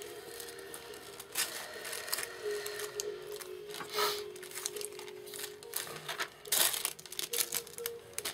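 Rustling and crinkling as hands handle a lace-trimmed cloth book, in several short bursts, the loudest about four and six and a half seconds in. Quiet background music with a simple stepping melody plays throughout.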